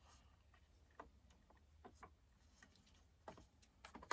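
Faint, scattered light clicks and taps of small chainsaw parts and tools being handled during a teardown, over a low steady hum.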